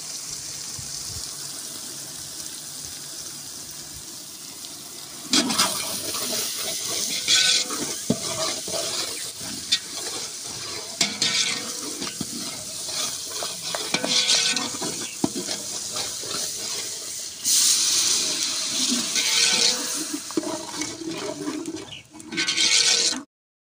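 Onion-tomato masala sizzling in a large aluminium pot while a long steel ladle stirs it, scraping and knocking against the pot. The stirring comes in loud surges from about five seconds in, and the sound cuts off abruptly near the end.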